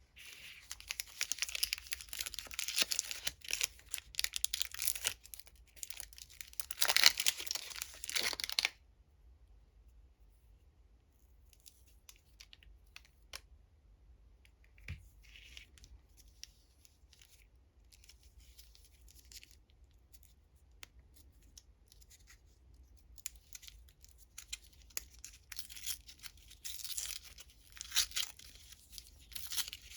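Plastic candy wrappers being torn open and crinkled by hand. There is a dense burst of crackling for the first nine seconds, then only scattered small rustles and clicks, and then crinkling and tearing again from about 23 seconds in.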